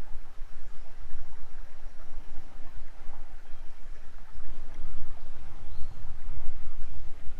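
Flowing creek water with a heavy, uneven low rumble buffeting the microphone throughout.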